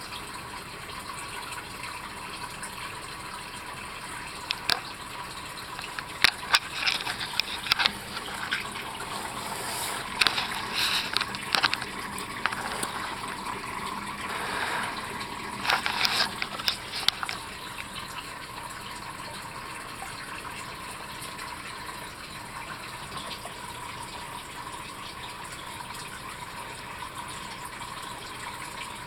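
Aquarium filter running, with a steady rush of splashing, gurgling water. Clusters of sharp crackling clicks come through the middle stretch.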